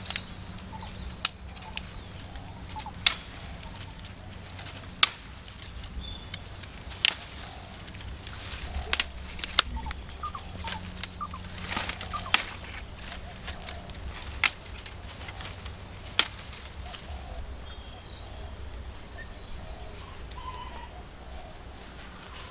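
Dry brushwood twigs snapping and rustling as they are broken off by hand, a dozen or so sharp cracks at uneven intervals, the last about two-thirds of the way through. Birds chirp near the start and again near the end.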